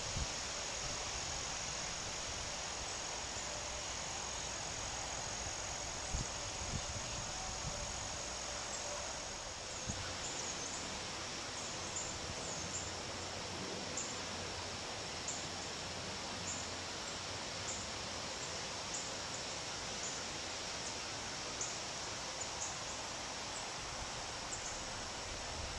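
Outdoor insect chorus: a steady high drone of insects with repeated short high chirps from about ten seconds in, over a steady wash of noise. Occasional low bumps of wind on the microphone come mostly in the first half.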